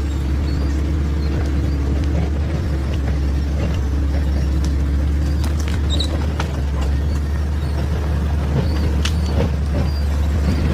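Motor grader's diesel engine running steadily under load, a heavy low rumble with a steady hum above it and a few faint clicks and rattles.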